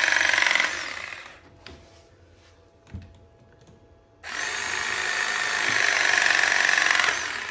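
Electric Rothenberger press tool running through two press cycles, crimping a brass fitting onto PER pipe. The first winds down about a second in; after a quiet pause with a couple of faint clicks, the second runs for about three seconds and its pitch drops as the stroke finishes.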